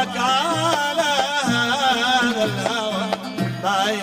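Lahji Yemeni folk music: an ornamented melody that wavers up and down in pitch, over accompanying instruments and a steady, repeating bass rhythm.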